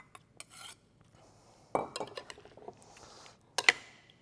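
A spoon clinking and scraping against a ceramic mixing bowl while stirring the raw tuna with coconut cream, tomatoes and cucumber, in scattered sharp clinks. The loudest clink comes about three and a half seconds in.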